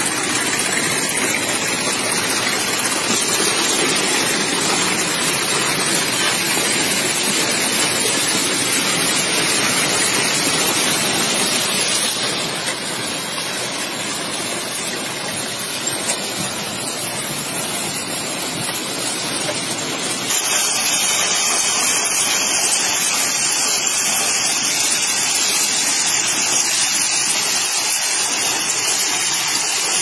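Crushed-stone railway ballast pouring steadily out of a hopper wagon's chute onto the track bed, a continuous rushing rattle of stones. It drops somewhat in level for a stretch in the middle and changes abruptly about two-thirds of the way through.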